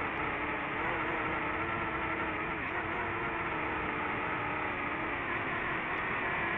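DJI FPV drone's motors and propellers whirring steadily in flight: a steady whine with several pitches over a rushing noise, the pitch wavering slightly.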